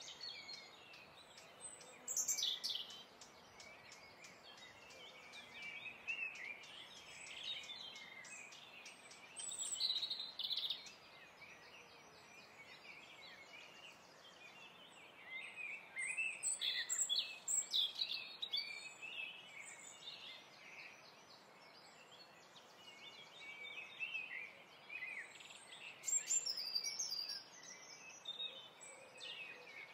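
Birds chirping and calling, many short notes and quick trills coming in irregular bursts over a steady background hiss.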